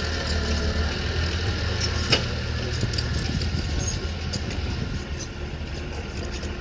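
Engine of a piece of construction machinery running steadily at a low idle-like drone, with one sharp clank about two seconds in and a few light ticks.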